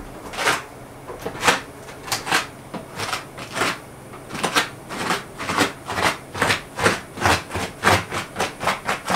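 Sneakers peeling off a freshly painted, still-tacky floor with each step, a sticky crackling sound repeated a couple of times a second that comes quicker near the end.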